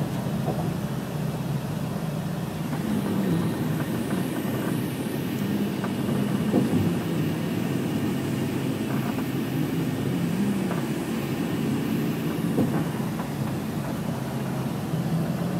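Steady engine hum and road noise inside a moving car's cabin at expressway speed, with a few soft thumps.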